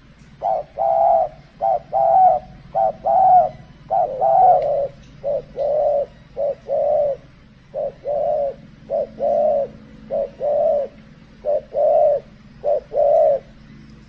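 Spotted dove cooing: a steady run of about eleven two-part phrases, each a short note followed by a longer coo.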